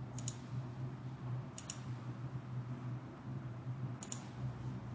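Computer mouse clicking three times, each click a quick pair of sharp ticks, over a steady low hum.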